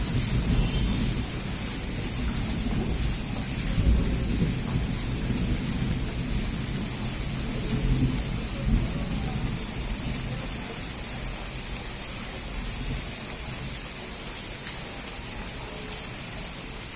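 Steady rain falling, with a low rolling rumble of thunder through the first half that swells twice and dies away after about ten seconds, leaving only the rain.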